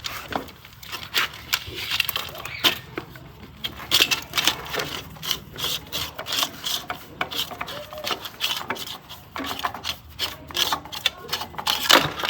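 Rapid, irregular clicking and clinking of hand tools against metal engine parts.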